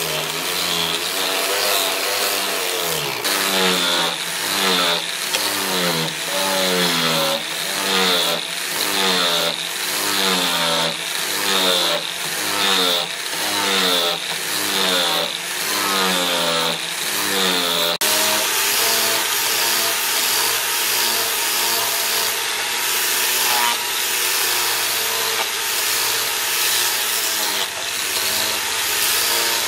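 A tool working wood in repeated back-and-forth strokes, about one and a half a second, its pitch sweeping with each stroke. About halfway through it cuts abruptly to a steadier machine-like running sound.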